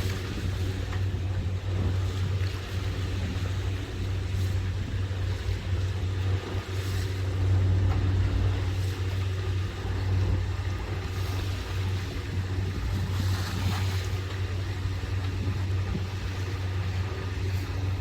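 Catamaran's diesel engine running steadily at low speed, a constant low drone, with the rush of water along the hull rising now and then, loudest about three-quarters of the way through.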